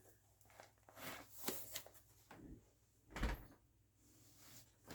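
Faint handling noises of a stamp-storage binder being opened and its plastic page sleeves shifted: a few short rustles, with a soft thump about three seconds in.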